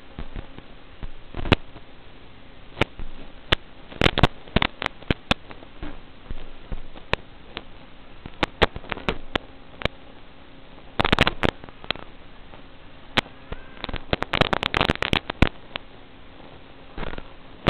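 Hiss and irregular crackling pops of static from an analog FPV video link's audio channel. The crackles come in clusters, denser around four seconds in, eleven seconds in and fourteen to fifteen seconds in, as the signal breaks up.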